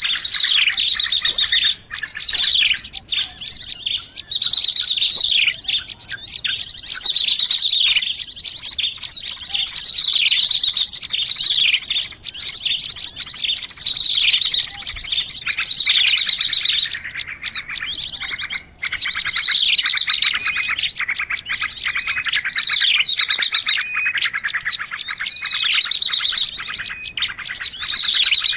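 A dense chorus of small songbirds chirping and twittering over one another, with fast, high-pitched trills and rapid repeated notes that hardly pause: a lure recording (suara pikat) used by bird catchers to draw small birds in.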